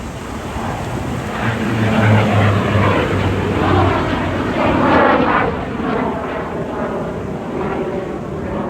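Yak-110 aerobatic plane flying past, its steady low engine drone growing to its loudest about two to five seconds in, with sweeping falling tones above it as it passes, then easing off.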